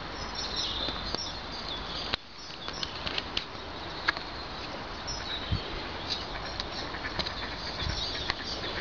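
Steady outdoor background noise, with short high bird chirps now and then and a few faint clicks.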